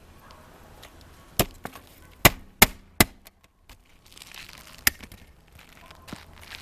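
Nails being driven into roof shingles: five sharp strikes, the three loudest in quick succession about two to three seconds in, then rustling as shingles are handled.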